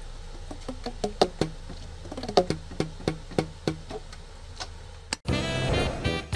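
Alto saxophone keys pressed and released by hand, the pads slapping shut on the tone holes as a string of short, hollow popping knocks at uneven spacing, over a low steady hum. About five seconds in the knocks stop and saxophone jazz music begins.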